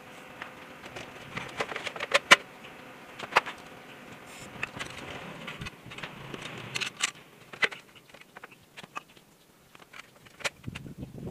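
Scattered metallic clicks and clinks of a motorcycle's steel muffler and clamp being handled and fitted, the loudest about two seconds in and more around seven seconds in, over a faint steady hiss that fades out after about seven seconds.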